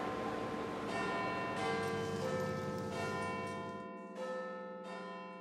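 Church bells ringing a peal, a new bell struck about every half second to second, the tones ringing on over one another and fading toward the end.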